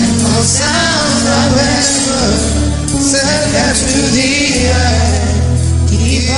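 Christian worship song: a singer's voice over band accompaniment with sustained bass notes and cymbals.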